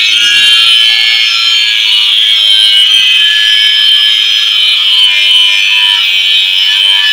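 Handheld electric circular saw cutting lengthwise along a wooden plank: a loud, steady, high-pitched whine of the blade in the wood.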